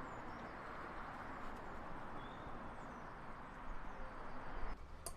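Outdoor background: a steady rushing noise with a few faint bird chirps. It cuts off abruptly near the end, followed by a single click.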